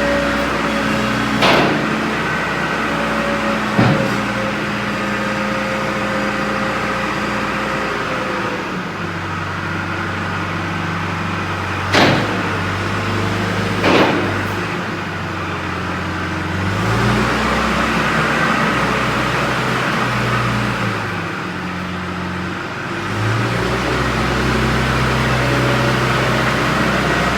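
John Deere 410G backhoe loader's four-cylinder diesel engine running, its pitch stepping up and down several times as it is revved. Four sharp knocks sound over it, two in the first few seconds and two more about halfway through.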